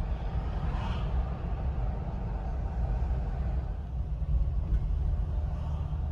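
A car driving, heard from inside the cabin: a steady low rumble of engine and tyre noise.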